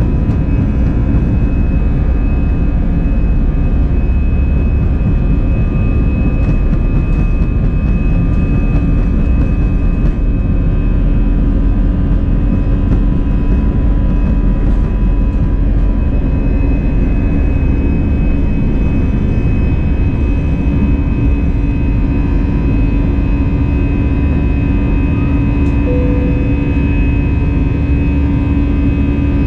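Airbus A320's jet engines running steadily, heard from inside the passenger cabin: a loud, even drone with a constant high whine over a deep rumble.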